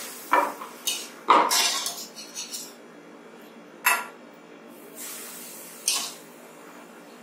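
Steel ladle clinking against iron kadais as hot ghee is scooped from one pan and poured into besan batter in the other, with short hissing sizzles as the hot ghee goes in. A series of sharp clinks, the loudest a little over a second in.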